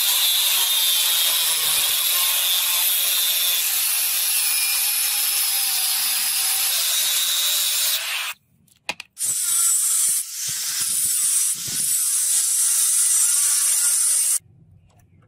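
Abrasive power sanding of a forged steel blade: a steady, loud grinding hiss that stops about eight seconds in, starts again a second later and cuts off near the end.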